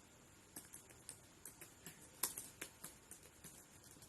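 Computer keyboard typing: irregular, faint key clicks, with one harder keystroke about two seconds in.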